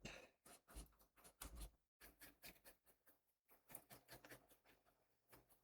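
Faint, irregular small taps and scratches of a paintbrush working watercolour paint on a palette, mixing up more sap green.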